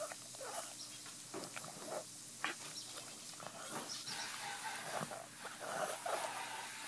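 A pug chewing and gnawing a treat held in a person's fingers: irregular mouth smacks and crunching clicks, one sharper click about two and a half seconds in.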